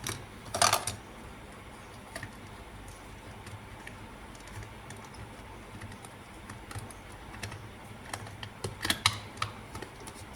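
Scattered sharp clicks and light clatter of small hard objects being handled, with a louder burst of clatter about half a second in and another near the end.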